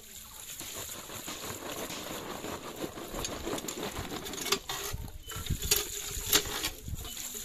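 Cast-iron hand pump being worked, its handle clanking sharply about once a second in the second half, with water gushing from the spout and splashing onto cauliflower florets in a plastic colander.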